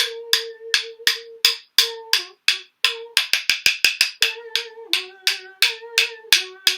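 Wooden rhythm sticks struck together, each tap ringing briefly at a clear pitch. The taps come at about three a second, with a quick run of rapid taps a few seconds in, like a woodpecker drumming.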